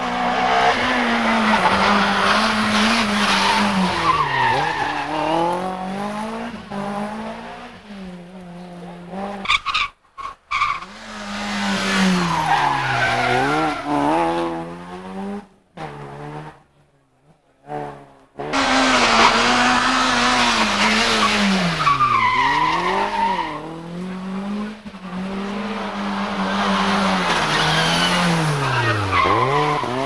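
Two-litre rally cars driven flat out on a tarmac stage, engines revving high and dropping again and again as they brake and change gear into the bends, with some tyre squeal. The sound breaks off briefly a little before halfway, then another car comes through.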